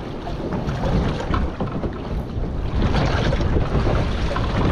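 Wind buffeting the microphone over the steady rush of the sea around a small boat, rising and falling in gusts.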